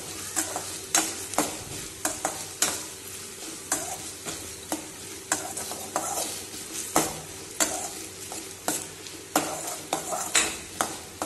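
Perforated steel ladle scraping and clinking against a stainless steel pan as it stirs chopped onions sautéing in hot oil, over a steady sizzle. The clinks come irregularly, about one or two a second.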